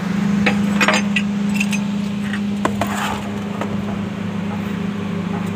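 Hitachi 200-class excavator's diesel engine idling steadily, with a scatter of light metallic clinks and knocks in the first few seconds.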